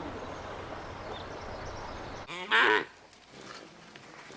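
Steady outdoor hiss, then about halfway through a single short, loud livestock call that rises and falls in pitch.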